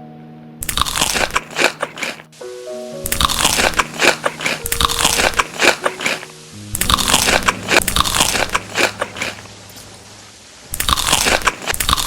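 Crunchy food being bitten and chewed close up, in four loud bouts of crunching with short pauses between, over soft piano music.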